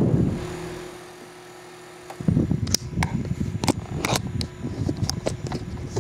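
PMX 4-inch mini high-velocity fan running. Its airflow buffets the microphone as a low rumble that dies away within the first second, leaving a steady motor hum. About two seconds in the rumble comes back, with scattered sharp clicks of the camera being handled.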